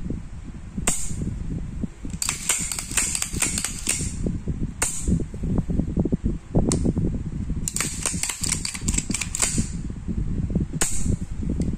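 Reassembled Rock Island Armory 1911 pistol being worked by hand, its action freshly cleaned and oiled: sharp metallic clicks and clacks of the slide and action. Single clicks about a second in, near the middle and near the end, with two runs of rapid clicking between them, over low handling rub.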